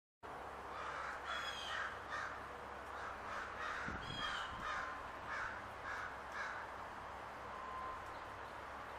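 Birds calling outdoors: a run of harsh, repeated calls, a few a second, starting just after a brief silence and thinning out after about six and a half seconds, over a steady background hiss.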